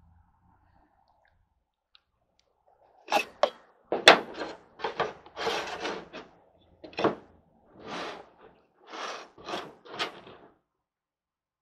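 A stainless drip coffee maker being tilted and set back down on a wooden table while wooden shims are pushed under its base: a string of knocks and short scrapes starting about three seconds in, with the sharpest knocks about four and ten seconds in.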